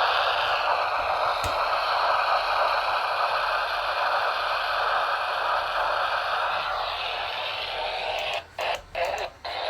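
AM radio static: a steady hiss from a receiver tuned to a station that is not coming in. Near the end it cuts out briefly several times.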